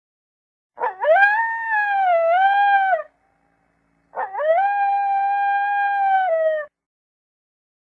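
Wolf howling: two long howls, each rising quickly at its start, held for about two seconds and falling away at its end, with a pause of about a second between them.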